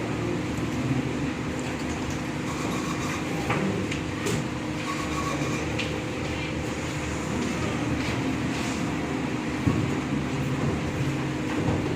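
Steady mechanical hum over a low rumble, with a few light clicks and knocks; the sharpest comes near the end.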